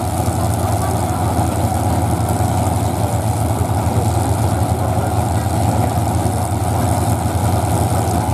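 Several demolition derby cars idling together at the starting line, a steady low engine drone with no crashes.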